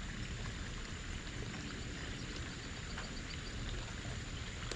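Steady rain falling, a soft hiss with faint scattered drop ticks.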